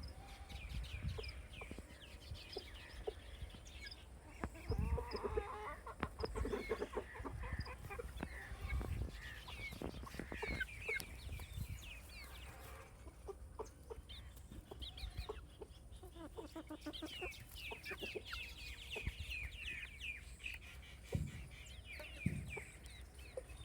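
Baby chicks peeping: many short, high, falling chirps in quick runs. Lower-pitched chicken calls and a few knocks come in from about 4 to 12 seconds in.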